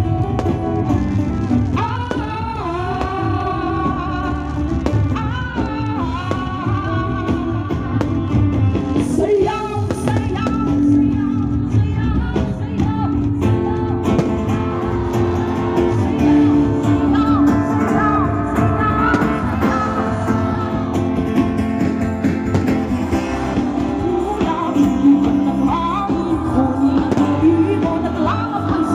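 Music with a singing voice over a steady accompaniment.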